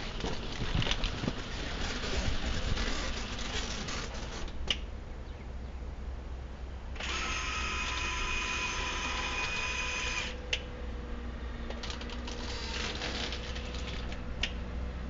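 Telemax tracked bomb-disposal robot at work: a rough clatter from its tracks for the first few seconds, then a steady electric motor whine of several pitches for about three seconds as its manipulator arm moves, with a few sharp clicks.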